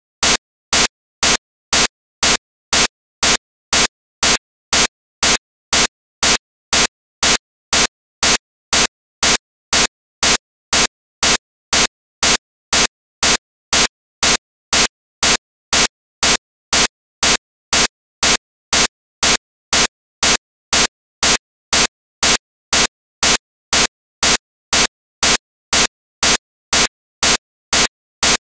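Short bursts of hiss-like static repeating evenly, about two a second, with silence between each burst.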